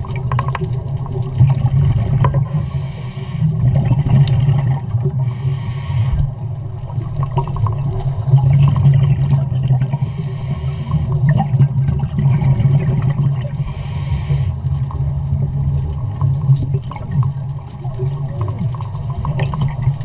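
A scuba diver breathing through a regulator, heard underwater: a short hiss with each breath every three to four seconds over a steady low rumble of water and bubbles.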